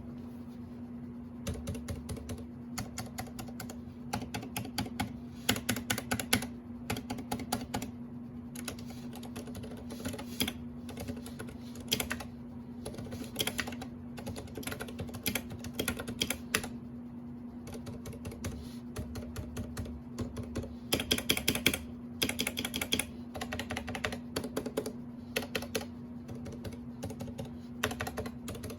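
Typing on a Ducky One 2 Mini keyboard with Cherry MX Silent Red (Pink) switches, linear switches with rubber dampers: quick runs of muted keystrokes broken by short pauses, over a steady low hum.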